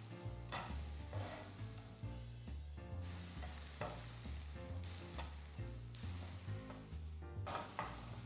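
Diced onion and garlic sizzling in oil in a frying pan, stirred and turned with a slotted spatula that scrapes and clicks against the pan now and then. The onion is softening and turning translucent.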